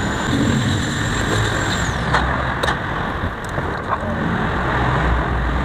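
Steady low rumble of a motor vehicle engine in the background, with a few faint scratches and clicks of a thin blade prying at the glued flap of a cardboard box. A faint high whine drops away about two seconds in.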